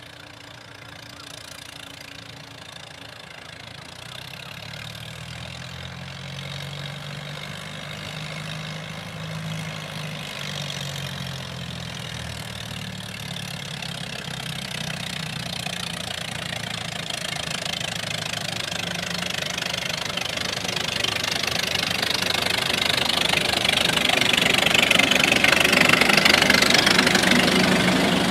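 Narrow-gauge diesel locomotive's engine running as it approaches hauling a train, growing steadily louder. In the last few seconds the locomotive and carriages pass close by with a loud wheel-and-rail clatter.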